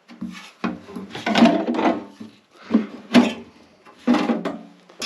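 Metal engine parts and tools being handled: a run of irregular clanks and knocks, some ringing briefly, as the oil pan and windage tray come off a Mopar 360 small block.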